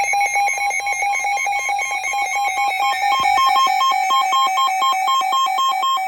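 Electronic emergency alert tone between weather warning broadcasts: a rapidly pulsing synthetic beep at one pitch, joined about halfway through by a second, higher beep so that the two pitches alternate quickly.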